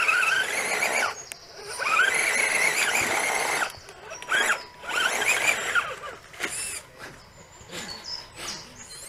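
Electric motor and geartrain of a 1/10-scale RC crawler truck whining as it climbs a steep dirt bank, the pitch gliding up and down with the throttle over a hiss. The whine is loudest and longest in the first three and a half seconds, then comes in short bursts with a few clicks.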